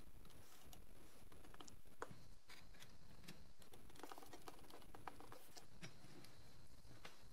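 Small screwdriver scraping and picking at a split wooden handle on a rusty metal crank arm: faint, scattered small clicks and scrapes, with a sharper click about two seconds in and a run of quick clicks around four to five seconds in.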